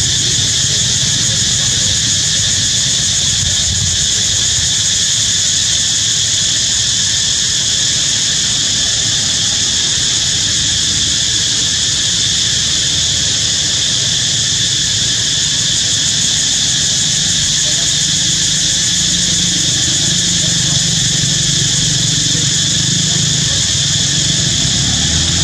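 Loud, steady, high-pitched insect chorus buzzing without a break, with a low rumble underneath.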